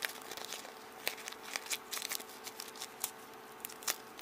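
Hard clear plastic being handled and turned in the hands: a scatter of small sharp clicks and crinkles, with a faint steady hum underneath.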